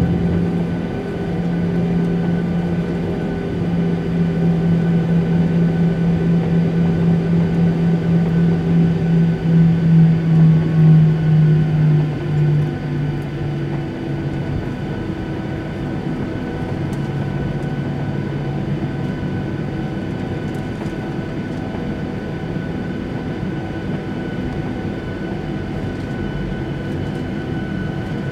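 Boeing 737-800's CFM56 engines at low taxi power, heard from inside the cabin over the wing, with a steady hum of cabin air. A droning tone wavers and pulses, sinks slightly in pitch and fades out about a dozen seconds in, leaving a steadier hum.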